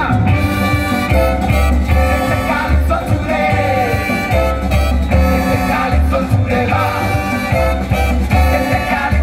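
Live band music from a large tropical dance band with saxophone and brass, electric guitar, bass and drums, over a steady pulsing bass beat, with a voice singing.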